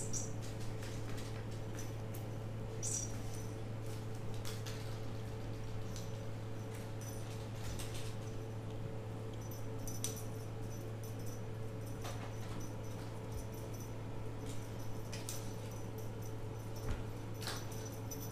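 Kittens playing on a hardwood floor: scattered light taps and clicks from paws and a swishing feather wand toy, over a steady low hum.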